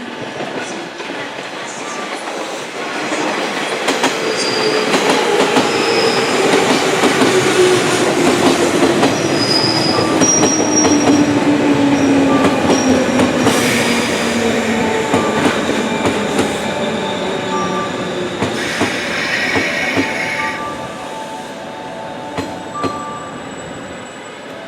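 An electric train pulling into the platform and braking, its motor whine falling steadily in pitch as it slows, with wheels squealing high and rail noise that swells and then fades.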